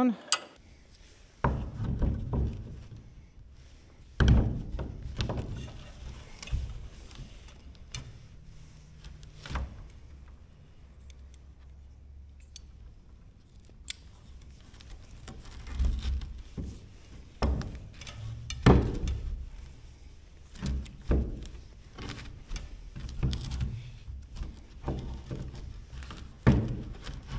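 Rigging being hung on overhead timber beams: irregular thunks and knocks with metal clicks and rattles from carabiners and hardware, and rope being handled.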